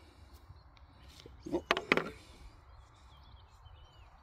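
Close handling noise: a quick cluster of sharp clicks and rustles about a second and a half in, from fishing tackle being worked by hand. Faint bird chirps near the end.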